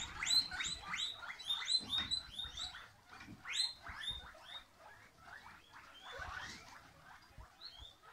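Several guinea pigs wheeking: short squeals that rise in pitch, several a second and overlapping at first, thinning out after about three seconds.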